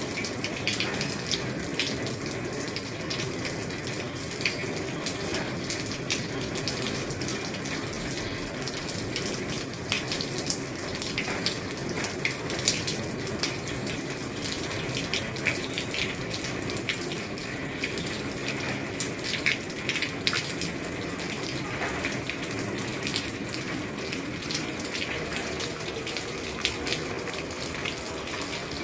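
Rain falling on an old roof: a steady wash of water noise with many individual drops ticking sharply through it.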